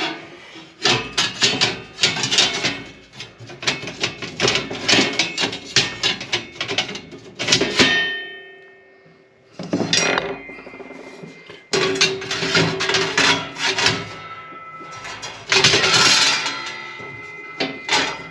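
Heavy black-coated stainless-steel fire pit panels clanking and knocking against each other as they are slotted together, many strikes ringing on briefly. The clatter pauses for about two seconds halfway through, then picks up again, loudest a couple of seconds before the end.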